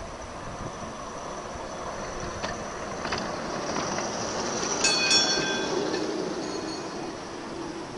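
A 5-inch gauge battery-electric model Sydney tramcar running along the track and passing close by. Its wheels click a few times as it nears, and it grows louder as it passes, with a brief high ringing whine about five seconds in and a lower hum as it moves away.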